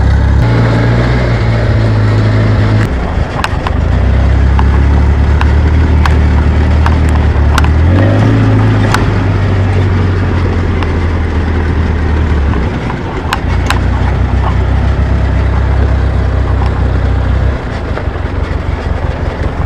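ATV engine droning at low speed over a rough rocky track, its note stepping up and down as the throttle changes, with a rise about eight seconds in. Sharp clicks and knocks from stones and the jolting vehicle sound here and there.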